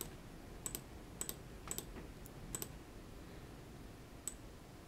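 Faint computer mouse clicks: a quick run of sharp clicks, many in close press-and-release pairs, over the first two and a half seconds, then a single click near the end.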